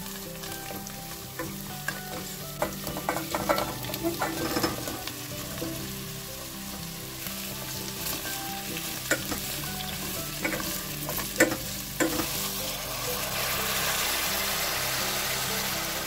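Chopped onion, carrot and then pumpkin cubes sizzling in a hot stainless steel pot as they are stirred with a plastic spoon, with scattered clicks and knocks of the spoon against the pot. The hiss grows louder over the last few seconds.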